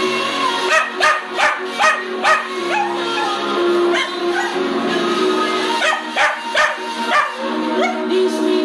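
Cocker spaniel puppy yipping along to a song: a string of short rising yelps, about two a second, with fewer, longer cries in the middle and a second run of quick yelps near the end.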